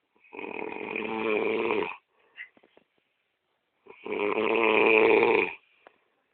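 A man snoring loudly in his sleep: two long snores of about a second and a half each, with a pause of about two seconds between them, the second louder than the first.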